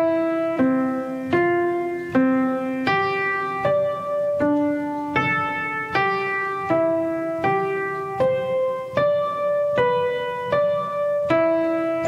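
Shoninger upright piano playing a steady run of struck chords, a new chord about every three-quarters of a second. Each chord stands for one digit of pi.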